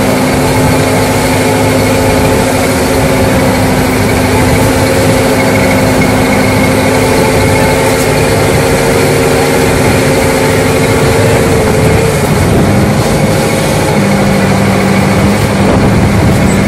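Fishing boat's engine and powered net-hauling drum running steadily while the net is hauled in. Its held humming tones drop lower about twelve seconds in.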